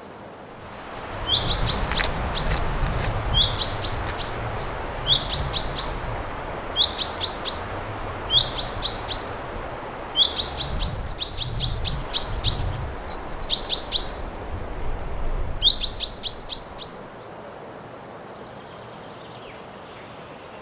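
Common chaffinch calling: short bursts of sharp, high, ringing notes, each opening with a quick upward sweep, repeated about every second and a half. They stop a few seconds before the end.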